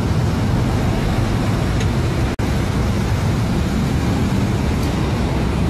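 A sport motorcycle engine running steadily, mixed with passing road traffic. The sound cuts out for an instant about two and a half seconds in.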